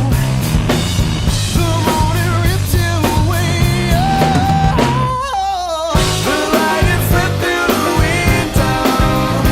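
Rock music with a drum kit and a sung or lead melody. A little past the middle the drums and bass drop out for about a second, leaving only the wavering melody, then the full band comes back in.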